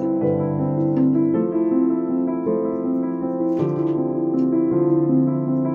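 Background music: a slow keyboard melody of held notes that change every half second or so.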